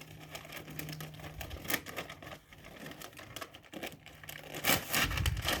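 Mystery toy box packaging being handled and torn open by hand: irregular crinkling, rustling and small clicks, busiest and loudest near the end.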